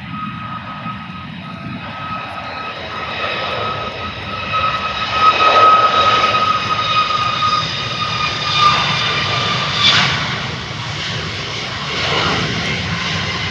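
Boeing 737 MAX 8's CFM LEAP-1B jet engines running as the airliner rolls past on the runway. A steady fan whine with several higher tones sits over a rushing noise. It grows loudest about five to six seconds in as the aircraft passes closest, then eases off a little.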